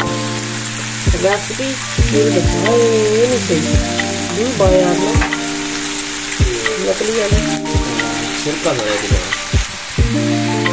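Chicken, peppers and onion sizzling in a frying pan while a slotted spatula stirs them, a steady hiss. Background music with a melody and a beat plays over it.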